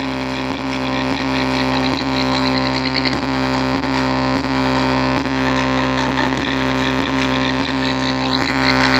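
A loudspeaker driven hard, putting out a distorted low drone that pulses with a knock about twice a second. A short rising tone comes in near the end.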